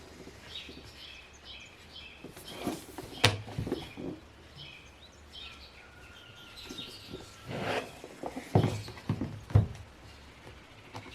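Birds chirping in the background, with a few handling sounds: a sharp click about three seconds in and several knocks and thumps near the end.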